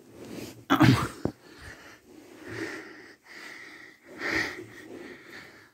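A sharp sneeze about a second in, followed by two softer, breathy snorts.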